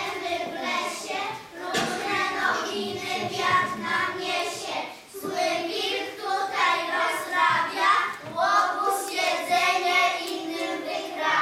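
A group of young children singing together, with a brief break between phrases about five seconds in.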